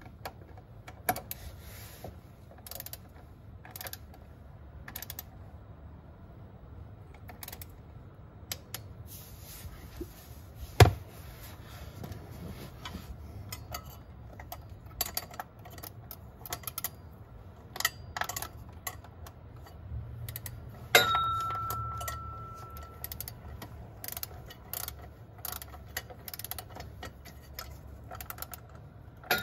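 Ratchet wrench clicking in short runs while the new transmission oil-pan bolts are tightened to their first 4 Nm stage. There is a sharp knock about 11 seconds in, and a metallic clank about 21 seconds in that rings on briefly.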